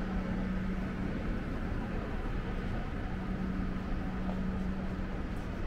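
Steady urban background noise with a continuous low hum under it.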